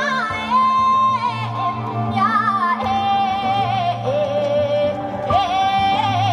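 A woman singing long, wavering held notes that slide and turn between pitches, over instrumental music with a sustained low bass.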